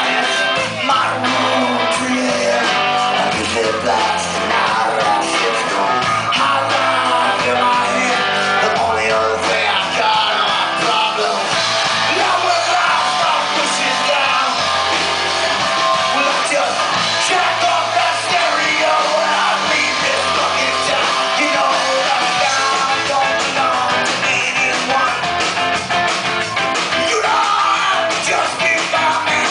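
Reggae-punk band playing live: electric guitars, bass and drums with a lead vocal.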